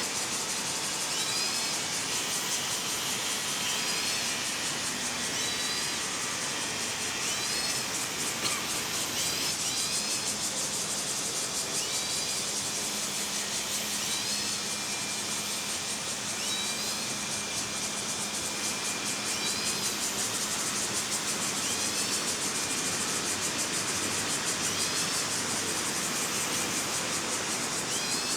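Steady shrill insect chorus with a small bird's short rising chirp repeated every second or two. A faint low hum comes in about ten seconds in and fades out some ten seconds later.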